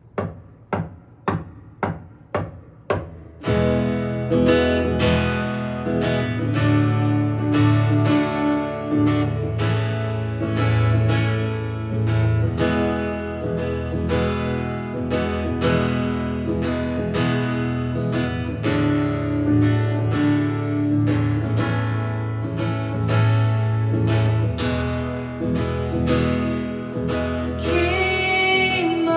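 Acoustic guitar playing a song intro: about eight single strums in the first three seconds, then steady rhythmic strumming with a fuller accompaniment. A singing voice comes in near the end.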